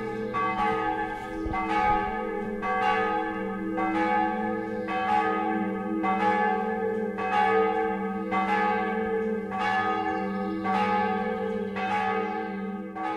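Church bells ringing, a strike about once a second over a long, steady hum of ringing tones, dying away near the end.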